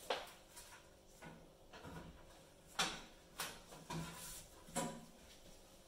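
Sheet-metal rear cover panel of a Beko cooker being offered up and fitted onto the back of the oven by hand: several short knocks and scrapes of thin metal against the cabinet.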